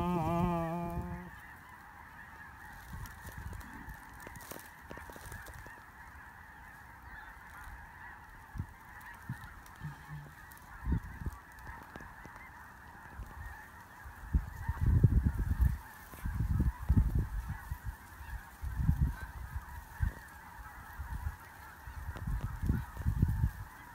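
Large flocks of geese flying high overhead: a continuous chorus of many distant birds honking at once, with no single call standing out. Irregular low rumbles break in through the second half and are louder than the chorus.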